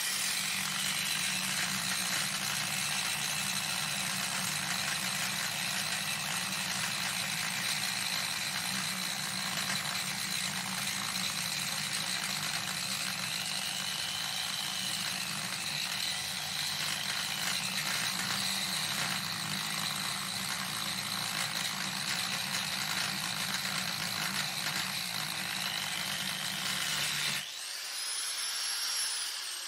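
Harbor Freight 4-1/2 inch 5-amp angle grinder with a new grinding wheel, grinding the head off a steel seat-mounting bolt: a steady loud grinding noise with a high whine. Near the end the grinding stops, and the motor's whine falls as the wheel spins down.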